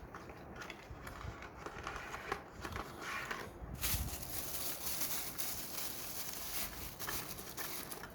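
Packaging being handled: crinkling and rustling with scattered small clicks, louder and denser in the second half.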